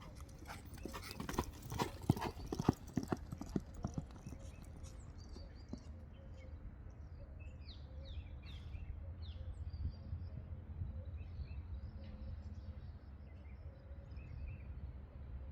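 Horse's hooves clip-clopping in a run of sharp knocks over the first few seconds, then dying away, leaving a steady low rumble.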